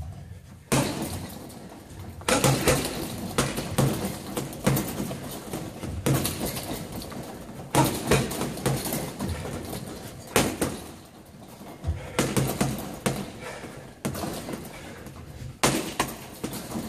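Boxing gloves punching hanging heavy bags: quick combinations of sharp thuds in irregular flurries, the hardest hits landing every second or two.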